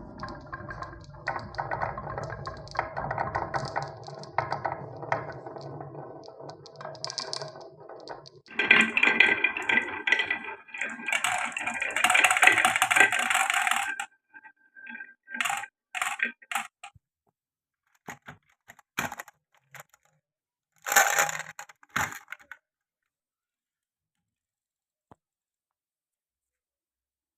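Marbles rolling and clattering through a wooden marble run, with a louder, denser rattling run from about 8 to 14 seconds, then a few scattered clicks as the last ones drop and settle.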